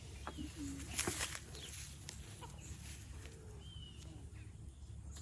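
Faint farmyard calls: hens clucking softly and small birds chirping. A brief rustle comes about a second in.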